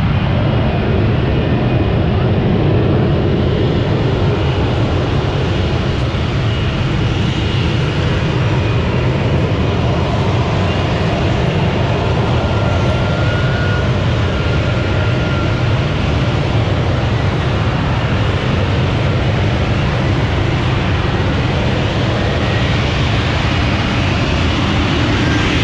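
Aircraft engine noise, steady and loud, with no clear rise or fall.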